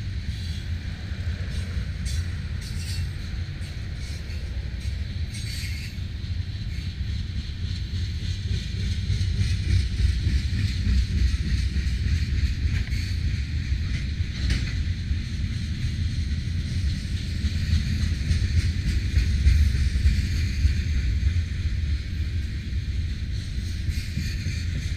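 Tank cars of a freight train rolling past: a steady rumble of wheels on rail with a few short clicks, growing somewhat louder about nine seconds in.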